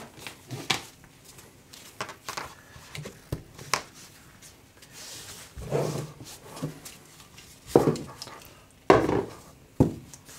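Gloved hands handling a charging cable and an iPhone on a workbench mat: scattered clicks and rustles, with several soft knocks in the second half as the cable is plugged in and the phone is set down.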